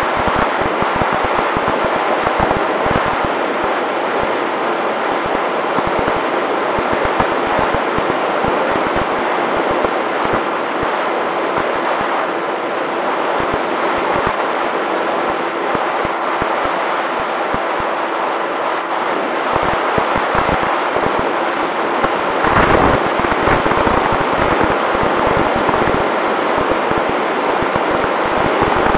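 Wind rushing over the onboard camera of a Volantex Ranger 1600 RC plane in flight, under the steady hum of its electric motor and propeller. About 22 seconds in the hum fades and low, gusty wind buffeting grows.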